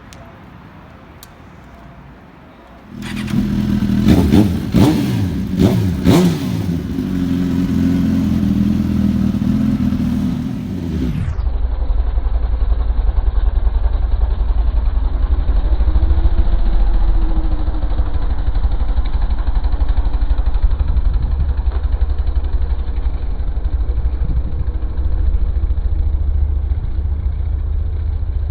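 Suzuki GSX-R1000 inline-four engine with an aftermarket exhaust, loud and sudden about three seconds in and revved sharply several times. From about eleven seconds in the sound changes abruptly to a steady low rumble.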